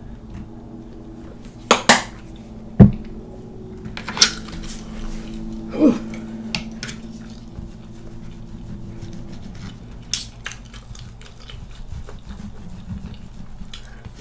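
Knife and fork clinking and scraping against a metal platter as a waffle is cut, with a handful of sharp clinks and one louder knock about three seconds in. A low steady hum runs underneath.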